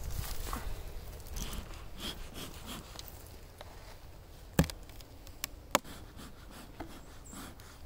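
A few sharp knocks and clicks, the two loudest about a second apart near the middle, over a faint low rumble.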